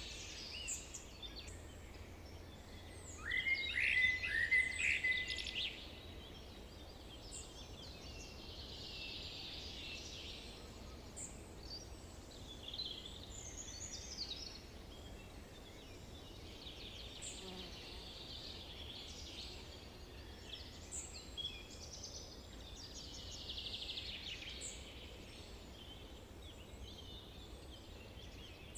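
Several birds singing and chirping over faint steady background noise, with one nearby bird's loud run of high chirps about three to six seconds in.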